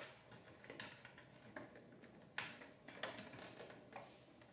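Faint clicks and scrapes of a small screwdriver pressing down the spring release tabs of a Rachio Generation 2 controller's plastic push-in terminal block as wires are fed in, several separate clicks with the loudest about two and a half seconds in.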